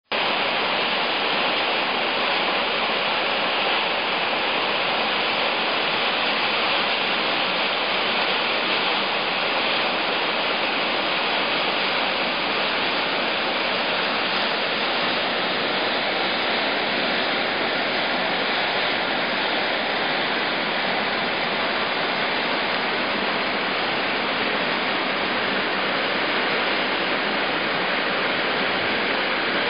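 River swollen by heavy rainy-season rain, its water rushing steadily without a break.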